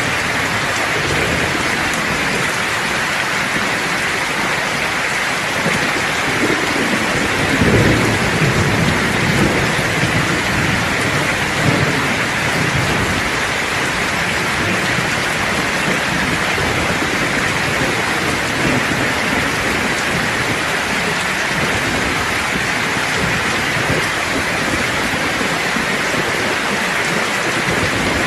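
Steady heavy rainfall with a rolling rumble of thunder that swells about six seconds in, peaks around eight seconds and fades out by about thirteen seconds.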